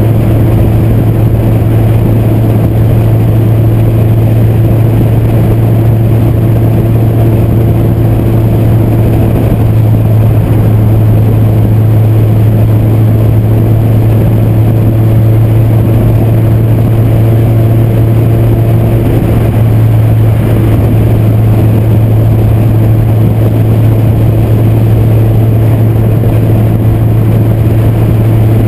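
K24-swapped Honda Fit's naturally aspirated 2.4-litre inline-four running at a steady highway cruise, a constant low engine and exhaust tone with road and wind noise. Heard from a camera mounted on the outside of the car's flank.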